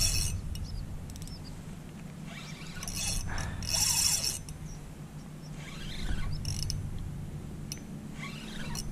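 Fishing reel working in short spells while a fish pulls on the line, with the loudest spell about three to four seconds in.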